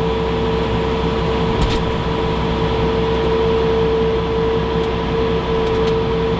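Steady drone inside the closed cab of a John Deere 6715 tractor, a constant whine over a low rumble from the running machine and its cab fan. Really loud.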